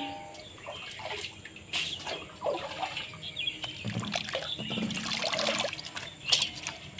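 Water sloshing and splashing in a steel basin as hands swish and rub pumpkin leaves to wash them, with dripping as the leaves are lifted out near the end.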